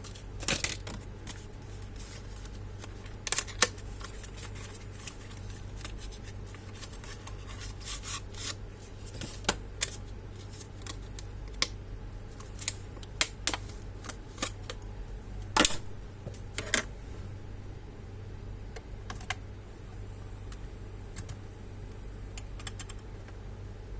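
Irregular light clicks and taps of hands and tools on the plastic and metal parts of a Dell Optiplex 5260 all-in-one computer being taken apart, over a steady low hum.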